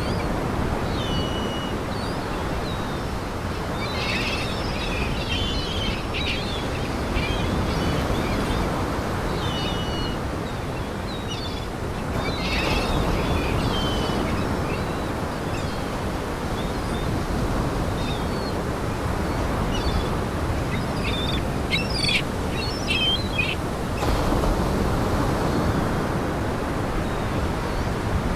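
A flock of seagulls calling: many short high calls, bunched into flurries every several seconds, over a steady rushing noise.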